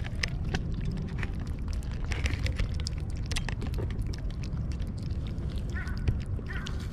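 Cats crunching dry food: a steady run of small sharp crunches over a low rumble, with a few short high calls near the end.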